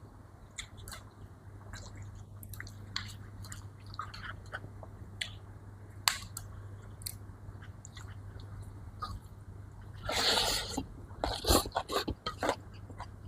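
A person eating close to the microphone: scattered soft mouth clicks and chewing, then a louder rustling burst about ten seconds in followed by a quick run of clicks, over a steady low hum.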